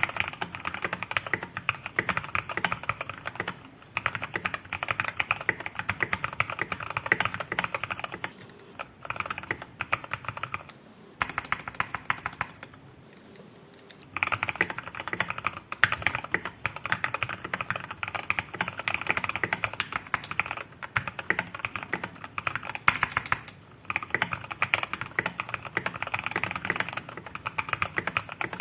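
Fast, continuous typing on a KEYCOOL 104 mechanical keyboard fitted with lubed Gateron Milky Yellow linear switches and PBT keycaps. The keystrokes come in rapid runs, broken by a few short pauses and a gap of about a second near the middle.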